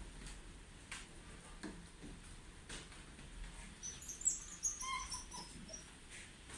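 Shiba Inu whining: a cluster of short, high-pitched squeaky cries about four seconds in, amid a few faint taps.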